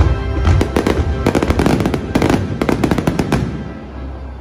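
A dense fireworks finale barrage: rapid bangs and crackling from glitter shells, with music underneath. The bursts stop about three and a half seconds in and the sound fades away.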